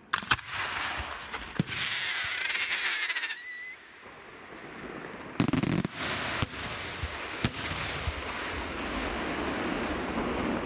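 Aerial fireworks display, with sharp shell bangs going off singly and in a quick cluster. A wavering whistle is heard about two seconds in, and a continuous hiss of bursting and falling stars fills the second half.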